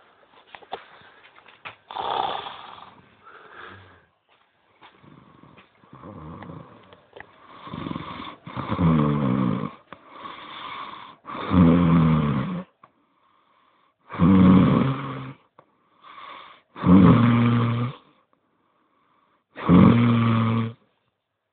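A sleeping man snoring loudly. Each snore is a buzzing, rattling breath, one every two to three seconds, and they grow louder about a third of the way in.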